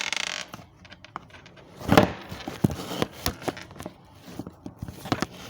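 Thin plastic sheet crinkling and rustling as it is handled and folded into a small pouch, with scattered light clicks and taps; the loudest rustle comes about two seconds in.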